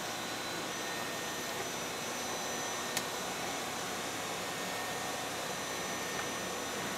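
Steady hum and hiss of a powered-up Makino S56 CNC vertical machining center, with one sharp click about three seconds in.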